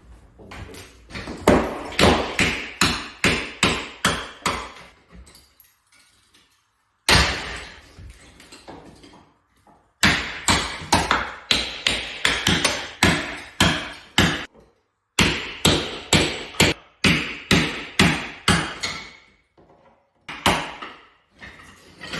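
A hammer driving a chisel in quick repeated blows, about three a second, in runs of a dozen or so with short pauses between. The chisel is stripping old tiles and adhesive from a wall.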